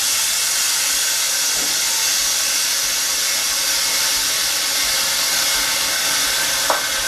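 Steady hiss of compressed air from an OCA bubble removal machine as its pressure cycle nears its end. A brief short tone sounds near the end.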